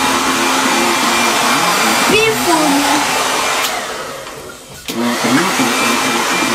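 Handheld hair dryer blowing steadily while drying wet hair. Its noise fades away about four seconds in and comes back suddenly just before five seconds.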